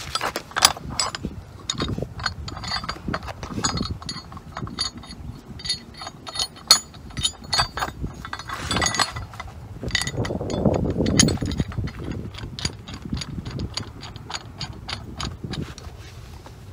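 Steel shackle and bucket release head clinking and knocking as the long line is connected to the Bambi bucket head, with a run of quick small clicks near the end as the shackle is worked.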